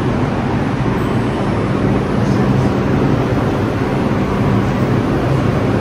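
New York City subway train running, a loud steady rumble with a low hum underneath.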